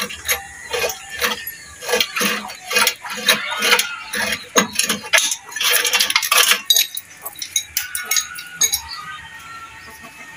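Irregular metallic clinks and scrapes of pliers or a filter wrench gripping and turning a spin-on filter on a stopped Mitsubishi 4DR5 diesel engine, working it loose. The clatter is busiest in the middle and thins out near the end.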